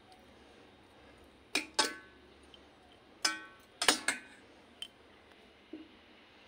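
Steel spoon clinking against a stainless steel pot, sharp metallic clinks that ring briefly. There are two about one and a half seconds in, three more a little later, then a couple of faint taps.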